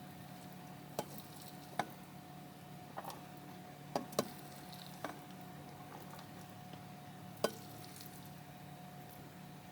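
Kitchen utensils tapping and clinking against pans and a plate as food is served, about seven short sharp clicks spread out, two close together around four seconds in. A steady low hum runs underneath.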